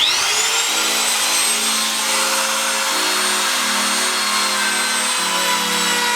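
Handheld trim router switched on, spinning up to a high steady whine and running on scrap plywood, its lower tone shifting a few times.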